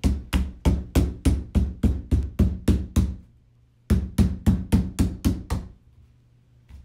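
Rubber mallet tapping rapidly on a plastic chicken-cage panel, about five blows a second, seating the interlocking pegs into their holes. One run of taps lasts about three seconds, then after a short pause a second, shorter run follows.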